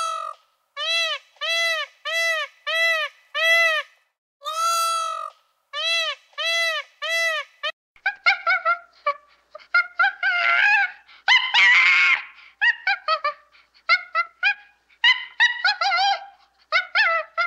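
An animal calling over and over: about ten short, evenly spaced pitched calls, each rising and falling, then a faster, more irregular run of calls, some of them rougher.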